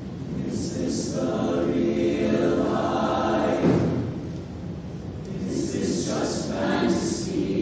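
Mixed show choir singing sustained chords in harmony. The sound swells from about a second in and breaks off just before four seconds, then a new phrase enters after about five and a half seconds.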